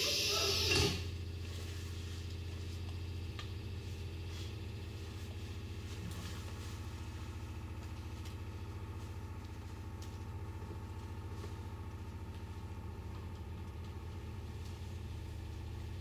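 A recorded example played over the hall's loudspeakers: a steady low engine-like drone with a fast, fine pulsing. It opens with a short loud rush of noise that cuts off within the first second.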